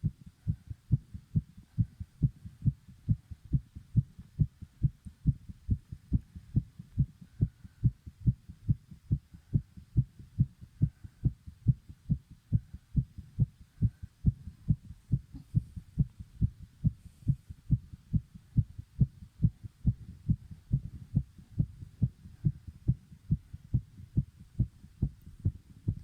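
Heartbeat beating fast and pounding: an even, rapid train of low thumps, about three a second.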